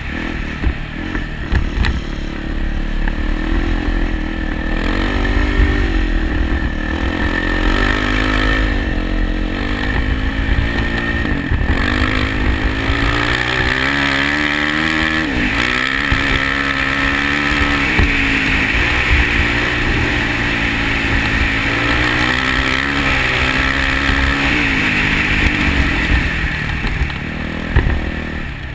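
Kawasaki KLX450 dirt bike's single-cylinder four-stroke engine running under load on sand, its revs rising and falling repeatedly as the throttle is worked, with a couple of sharp drops and climbs in the middle.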